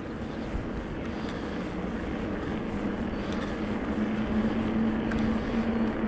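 Rockrider E-ST 900 electric mountain bike rolling downhill: wind and tyre noise, with a steady hum that grows louder and rises slightly in pitch over the last few seconds as the bike gathers speed.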